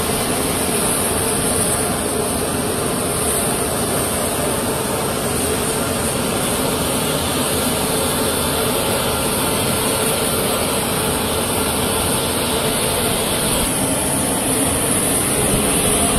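Steady, loud engine noise with a constant high-pitched hiss over it, unchanging throughout, like the running engines of a heavy transport aircraft on an airfield.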